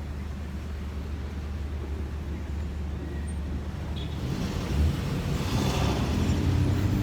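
Low rumble of road traffic that grows louder in the second half, as a vehicle passes about five seconds in.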